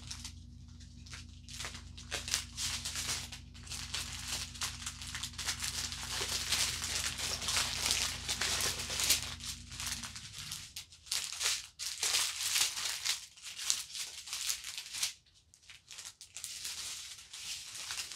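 Plastic bags of diamond painting drills crinkling and the small resin drills rattling inside them as the strips are handled and laid out, in quick irregular rustles.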